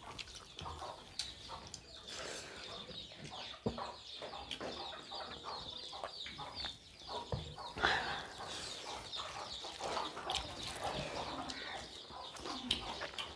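Eating by hand: fingers mixing and scooping rice khichdi on steel plates, with chewing and mouth noises as short clicks throughout. Animal calls sound in the background.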